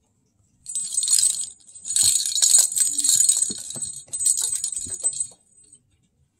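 A small jingle bell shaking in three bursts of jingling over about four and a half seconds, with a few soft knocks underneath as a cat moves about.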